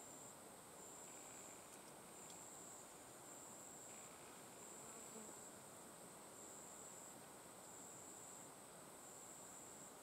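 Faint, high-pitched insect chirring: a steady high drone with a buzz that pulses about once a second.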